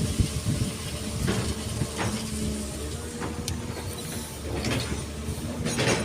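Diesel excavator engine running in a steady low rumble while the machine works, with several short knocks scattered through.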